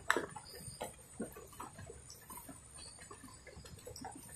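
Faint irregular clicks, taps and rustles of hands handling a freshly caught large prawn on the fishing line, with the loudest click just after the start.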